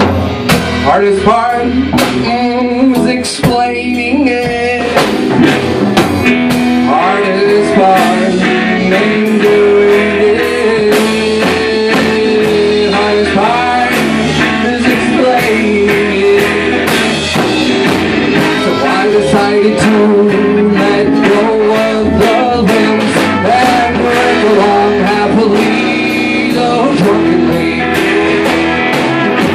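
A live rock band playing loud in a room: drum kit, electric guitar and a lead melody line held over them.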